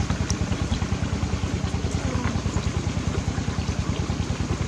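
Small engine idling steadily out of sight, a fast even chugging pulse.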